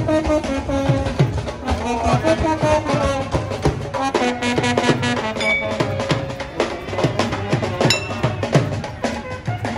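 Street brass band playing a tune, with trumpet and a large brass horn holding long notes over a steady drum beat.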